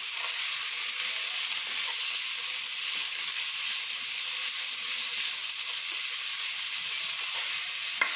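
Sliced onions and green chillies frying in hot oil in a pan, a steady high sizzle. A light knock near the end.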